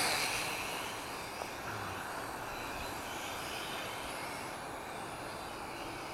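Sharper Image Lunar 14.4-inch quadcopter drone's small motors and propellers whining steadily, loudest at the start as it flies close by, with gusty wind buffeting the microphone.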